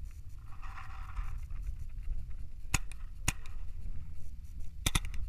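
Paintball markers firing single sharp shots: a few spaced shots from about halfway through, then a quick pair near the end, over a steady low rumble.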